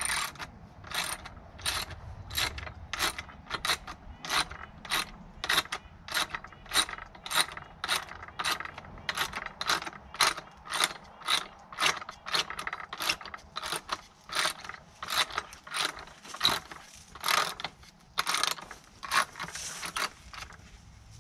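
Hand ratchet clicking in steady strokes, about two a second, as it tightens a screw into a wooden gate post.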